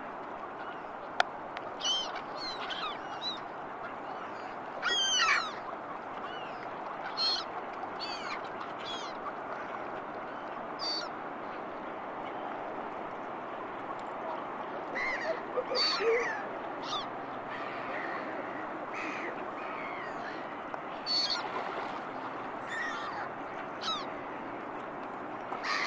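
Gulls and ducks calling at intervals: short, scattered high calls over a steady background noise, with a single sharp click about a second in.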